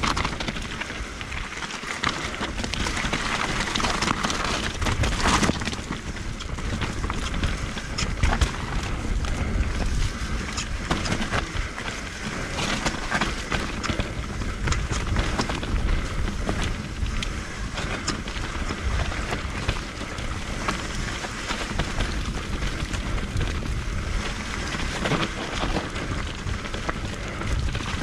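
Merida eONE-SIXTY electric mountain bike descending a dirt singletrack: tyres rumbling over dirt, rocks and leaf litter, with frequent clicks and rattles from the bike, and wind buffeting the microphone.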